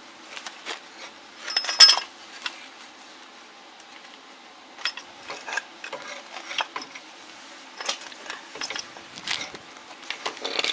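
Scattered metal clinks and knocks of a steel caster wheel and its mounting bracket being handled and held in place, with the loudest short clatter about two seconds in.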